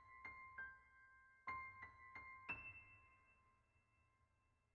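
Soft piano music: two quick runs of single struck notes, the last one ringing on and fading away.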